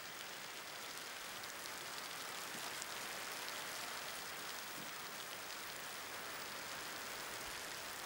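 Steady rain falling, an even hiss with faint scattered drops.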